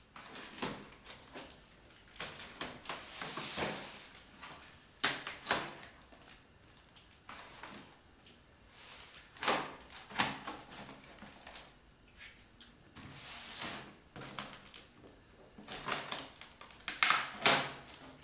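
Cardboard box being handled while its brown packing tape is picked at and peeled open: irregular rustling, scraping and tearing noises mixed with sharp clicks and knocks, loudest near the end.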